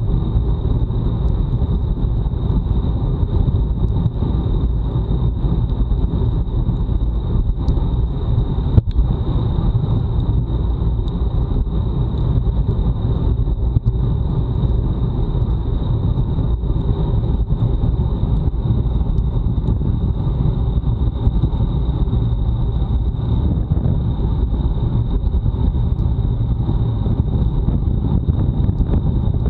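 Wind rushing over an action camera's microphone on a bicycle ridden at time-trial speed, a steady low rumble, with a thin high whine running throughout. A single sharp knock about nine seconds in.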